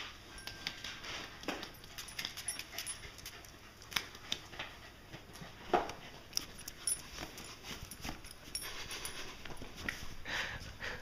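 Pembroke Welsh Corgi moving about during a game of fetch: scattered, irregular clicks and light knocks, with a few soft breathy sounds near the end.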